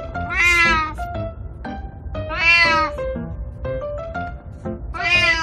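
A calico cat meowing three times, each meow loud and about half a second long, some two seconds apart. Light background music with short plucked notes runs underneath.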